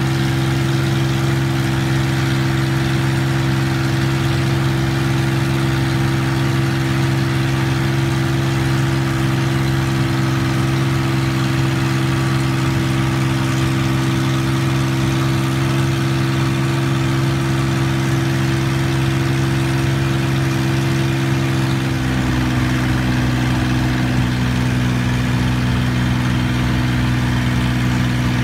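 Long-tail boat engine running steadily while the boat is under way, a constant engine note; about three-quarters of the way through, the note drops a little and a deeper rumble comes in.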